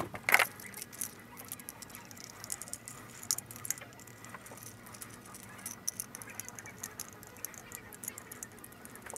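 Screwdriver tightening bolts through a plastic Scotty rod mount into a universal mounting plate: irregular small clicks and ticks of the tool, bolts and plastic parts being handled, with a few louder clicks.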